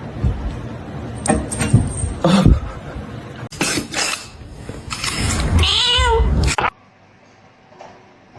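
A cat meowing, with one long, wavering meow about five and a half seconds in that cuts off suddenly; a few knocks are heard earlier.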